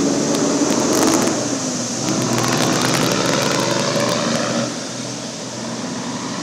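Semi-trailer truck driving through a flooded street: its engine running under a steady rush of splashing water from the tyres, with scattered crackles of spray. The splashing eases a little after about four and a half seconds.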